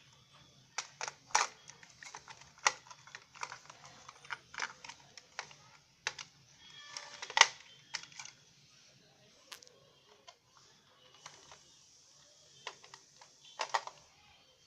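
Irregular clicks and taps of hands handling a plastic toy and its small parts, with the loudest click about halfway through and another cluster near the end.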